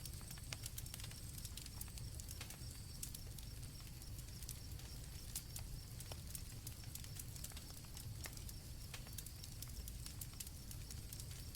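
Campfire crackling in irregular sharp pops over a low steady rumble, with crickets giving a faint, steady high trill behind it.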